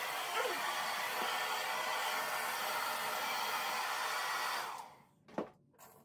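Handheld hair dryer blowing on its cool setting: a steady rush of air that is switched off about three-quarters of the way through and dies away quickly. A single short knock follows.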